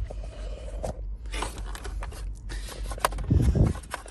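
Pliers scraping and clicking against the plastic and metal parts of a 1997 Chevy Tahoe's steering column as they are pried and pulled apart, in irregular bursts with a louder low-pitched burst about three seconds in.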